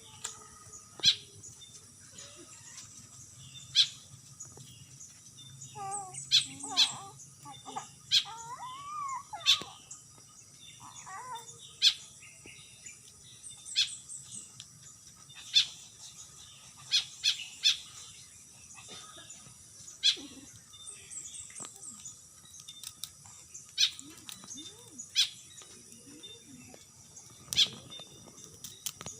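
A starling giving short, sharp call notes at irregular intervals, roughly one every second or two, with a few gliding whistled notes in the first half.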